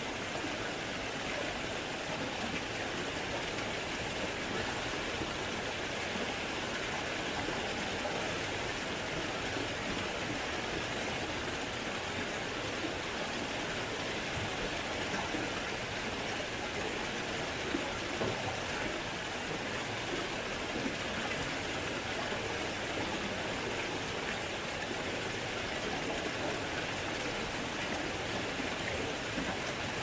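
Small mountain waterfall pouring over rock: a steady rush of falling, splashing water.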